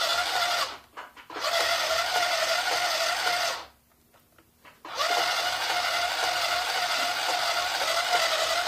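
Multikids My Style toy electric sewing machine stitching a seam: its small motor runs with a steady hum and a rapid needle clatter. It stops briefly about a second in and again for over a second around the middle, then runs on.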